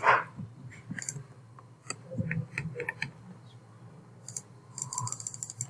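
Computer keyboard and mouse clicking: scattered single clicks, then a quick run of keystrokes near the end. A brief louder sound comes right at the start.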